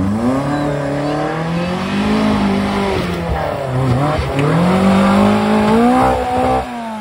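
A small open trials car's engine revving hard under load as it climbs a steep muddy slope, its pitch rising and falling several times with the throttle, then dropping away near the end.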